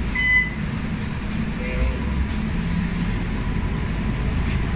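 One last electronic warning beep from the bus's door system, then the diesel engine and driveline of a MAN A95 bus rumbling low, heard from inside the cabin as the bus moves off from the stop.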